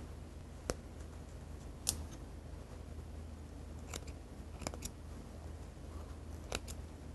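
Faint, sharp clicks and snips from stitches being picked and cut out of a mink garment's seam by hand, about seven of them, some in quick pairs.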